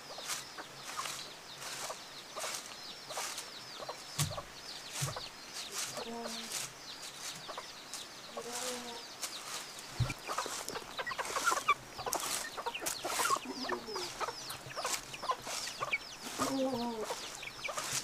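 A flock of chickens clucking in short calls while pecking at grain scattered on bare ground, with many brief scratchy taps and a few dull thumps.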